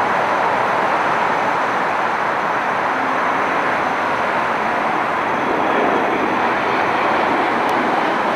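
The four rear-mounted Soloviev D-30KU turbofans of an Ilyushin Il-62M airliner, heard as a steady jet noise while it climbs away after takeoff.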